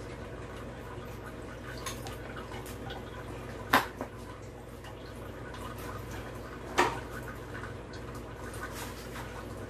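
Two sharp knocks, about three seconds apart, over a steady low hum.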